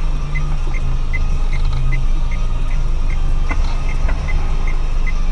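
Car engine and road noise heard from inside the car: a steady low rumble, with a light high tick repeating about two and a half times a second.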